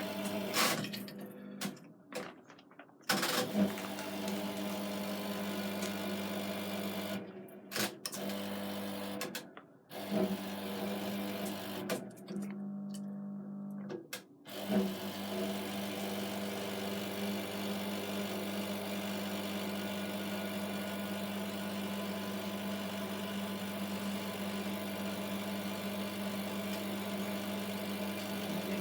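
Hotpoint Electronic 1000 Plus 9534 washing machine running, its motor humming steadily as it turns the drum. It cuts out briefly several times in the first half, then runs without a break.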